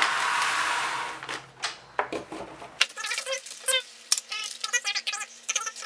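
Motherboard box and its packaging being handled: a rush of rustling noise at first, then after about three seconds a rapid, irregular string of light clicks and clinks.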